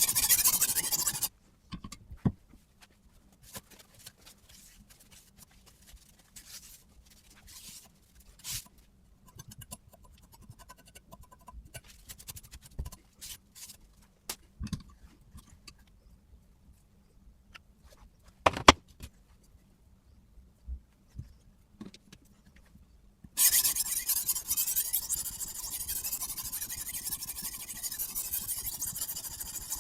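Sharpening stone scraping along a knife edge on a guided sharpening system, which stops about a second in. A long stretch of light clicks and taps follows, then steady scraping strokes start again near the end.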